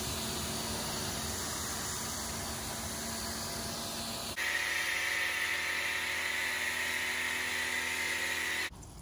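Pressure washer running, its spray rinsing a tire in a steady hiss with a low motor hum beneath. About four seconds in the sound changes to a foam cannon on the washer spraying soap foam, a louder, higher hiss that cuts off just before the end.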